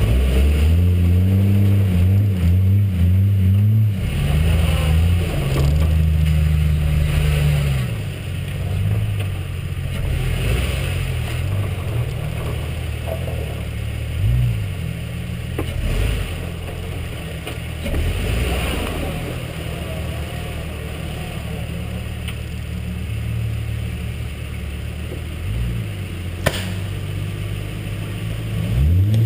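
A truck's engine heard from the vehicle itself: running under load with changing revs as it drives along a rough dirt track, then settling to a steady idle for most of the time as it sits at the edge of a big puddle, with revs rising again right at the end. A single sharp click about 26 seconds in.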